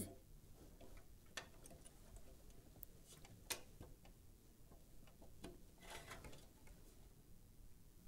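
Near silence with a few faint clicks and a soft rustle: a SATA power connector being pushed onto a hard disk drive and its cable handled.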